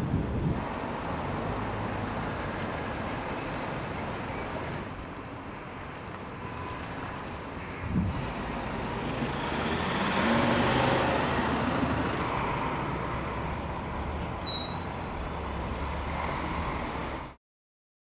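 City street ambience with steady traffic noise. There is a brief low thump about eight seconds in and a louder passing vehicle a couple of seconds later. It cuts off suddenly near the end.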